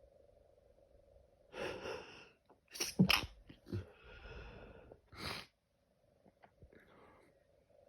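A person sneezing in an allergy sneezing fit: a drawn-in breath, then a loud sneeze about three seconds in, followed by breathy sounds and a second, shorter sneeze about two seconds later.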